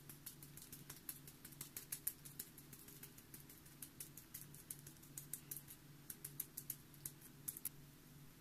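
Light, quick tapping and rattling of a small round stainless-steel mesh sieve being shaken to dust cocoa powder, several ticks a second, stopping shortly before the end.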